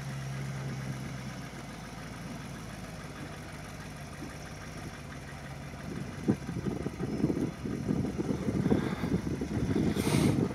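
Land Rover Discovery's engine running at a low idle as the truck crawls down a steep dirt slope. The sound grows louder and rougher from about six seconds in as it comes closer.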